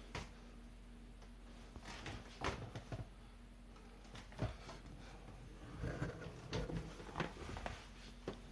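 Faint scattered knocks, clicks and rustles of someone moving about and handling things, with a cluster of knocks about six to seven seconds in as a room door is opened.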